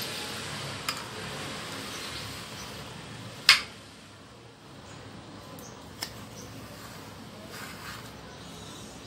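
A metal spoon scraping firm, frozen homemade ice cream in a glass dish, with sharp clinks of the spoon against the glass; the loudest clink comes about three and a half seconds in, with lighter ones near one second and six seconds.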